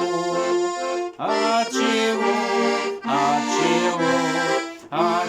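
Tula 301M garmon in F major playing an instrumental phrase: melody over sustained chords and a moving bass line, with short breaks between phrases about a second in and near the end.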